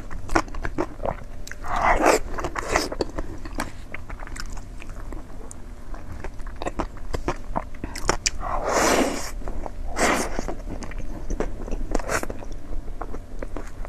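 Close-miked mukbang eating: a person biting and chewing food with wet smacking clicks and some crunching, with a few longer, louder bites or slurps about 2, 9, 10 and 12 seconds in.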